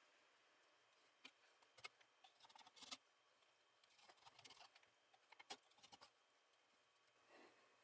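Faint, scattered clicks and light knocks of wood and small hardware being handled on a workbench: a few single taps, a short cluster about three seconds in, and two sharper knocks near six seconds.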